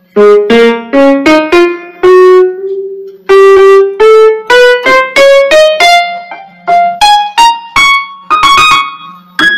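Casio CTK-5000 electronic keyboard playing a piano sound through its built-in speakers, sounding again now that its no-sound fault is fixed. Notes are played one at a time, climbing in pitch through the middle, with several struck close together near the end. A faint steady hum runs underneath.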